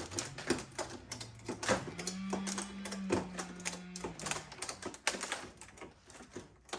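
Irregular sharp clicks and knocks of close-up hand work. In the middle a distant chainsaw revs up, runs steadily for about two seconds, then stops.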